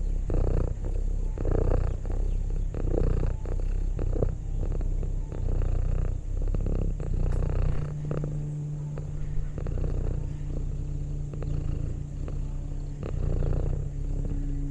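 Orange tabby cat purring close up, in a steady rhythm that swells with each breath, roughly every second and a half. A steady low hum joins about halfway through.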